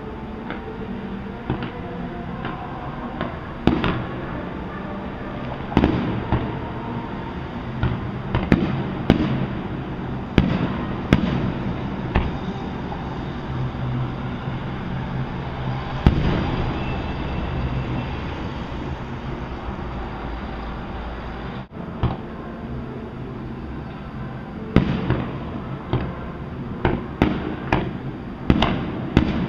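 Distant fireworks display: irregular bangs of shells bursting, a few seconds apart at first, then a quicker cluster near the end.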